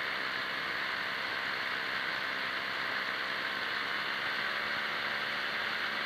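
Paramotor trike's engine and propeller running steadily in flight, a constant drone heard from the camera up on the wing, over an even hiss.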